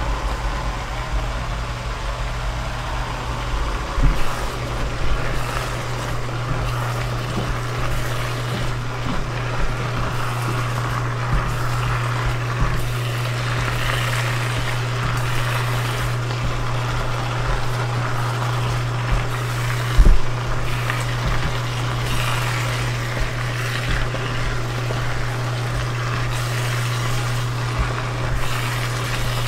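Bok choy leaves sizzling in a hot wok as they are stirred and turned with a spatula, over a steady low hum; the spatula knocks against the wok twice.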